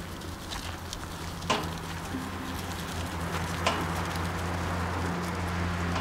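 A wire shopping cart rattling as it is pushed over gravel, with two sharp clacks about a second and a half in and near the four-second mark, over a low steady hum.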